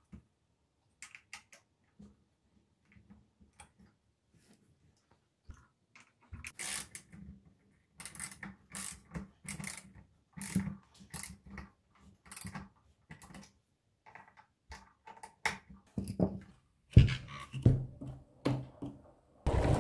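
Scattered clicks and metal clinks of an Allen key and axle bolt being handled as a scooter's rear wheel is bolted back on, sparse at first and busier after about six seconds.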